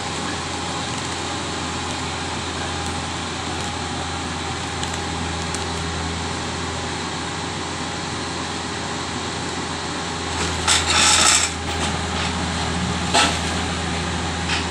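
Kubota U50 mini excavator's diesel engine running steadily, with a loud burst of clattering about eleven seconds in and a single sharp knock about two seconds later.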